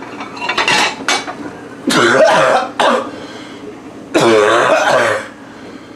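A man coughing and hacking to clear his throat, in three harsh bursts: a few short ones near the start, then longer ones about two and about four seconds in.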